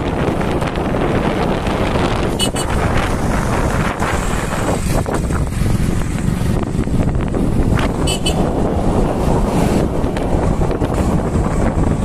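Wind rushing over the microphone of a moving motorcycle, mixed with steady road and engine noise. Two short high-pitched sounds cut through, about two and a half and eight seconds in.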